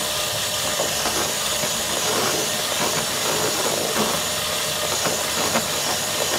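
Electric hand mixer running steadily, its twin beaters whipping egg whites into a stiffening meringue in a plastic tub.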